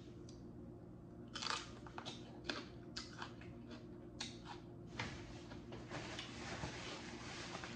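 Close-up crunching and chewing of a raw mini sweet pepper, a string of crisp crunches over a few seconds. About five seconds in, a paper towel starts rustling as it is crumpled and handled.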